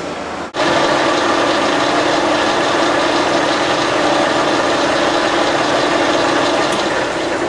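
Metal lathe running with its three-jaw chuck spinning a hexagonal bar: a steady mechanical hum that starts abruptly about half a second in.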